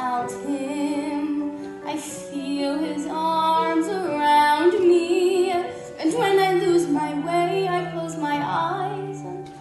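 A teenage girl singing a musical-theatre ballad solo, in phrases with vibrato on the held notes, over sustained low notes of an instrumental accompaniment.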